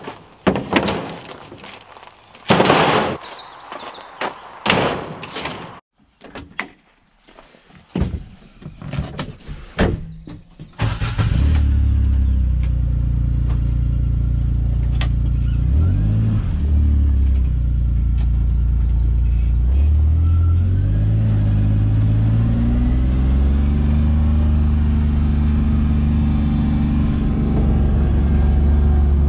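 Hollow knocks and clatter of plastic poultry transport crates being handled and set into a utility vehicle's metal cargo bed. About a third of the way in, the 4x4 utility vehicle's engine comes in loud and runs on, its pitch rising and falling as it drives over gravel.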